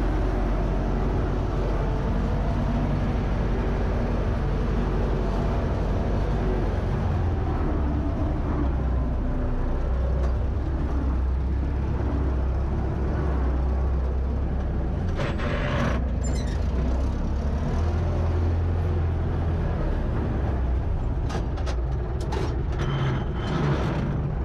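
UTB Universal 650 tractor's diesel engine running steadily while pulling a plough, heard from inside the cab. A few short rattling knocks break in during the second half.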